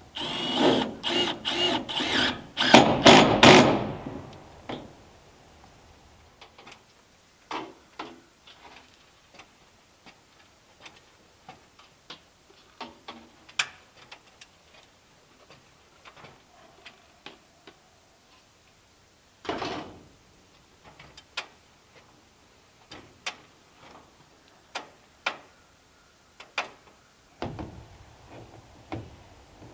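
Metal knocks and clicks from handling and fitting sections of stainless wood-stove pipe, with a quick run of loud sharp knocks in the first few seconds, then scattered separate clicks and a heavier thud about twenty seconds in.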